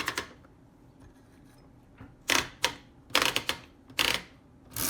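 Oliver No. 9 typewriter mechanism clacking in a handful of short bursts, starting about halfway through.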